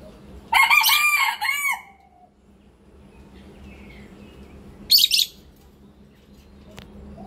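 Rooster crowing once, a loud crow of about a second and a half with several arching notes. About five seconds in comes a brief, loud, high-pitched call, and faint bird calls sound in the background.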